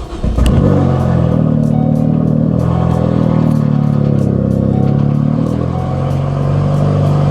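Big-turbo Ford Focus ST's turbocharged four-cylinder engine firing up for its first start after sitting ten months, catching about a third of a second in and then running steadily.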